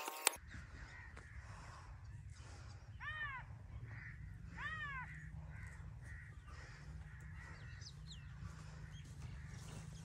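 A crow cawing twice, about a second and a half apart, with fainter small-bird calls later and a steady low rumble underneath.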